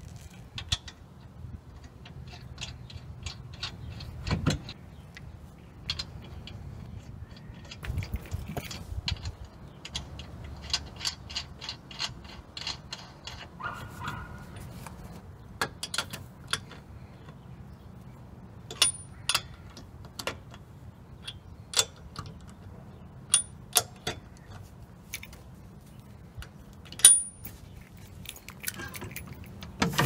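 Socket ratchet clicking in quick runs as lug nuts are run down and snugged on a steel wheel, with a few louder single metal clacks.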